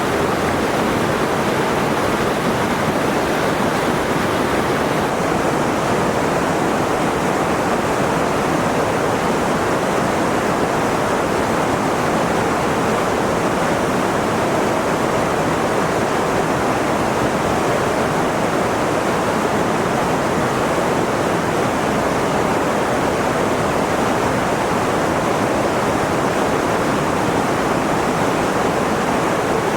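Steady rushing of falling or flowing water, an even roar with no breaks or swells.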